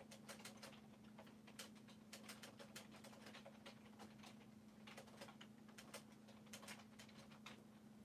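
Faint, irregular light ticks and clicks of chicks pecking and stepping in dry straw bedding, several a second, over a faint steady low hum.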